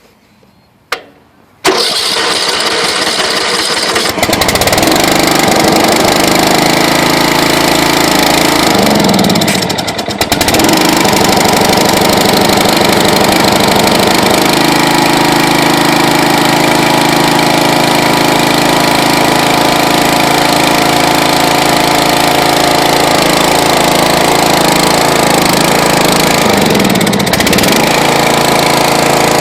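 A lawn tractor's 13.5 hp Briggs & Stratton engine being started cold on choke. The electric starter cranks it about two seconds in and it catches within a couple of seconds. It then runs steadily, with a brief dip about ten seconds in before settling again.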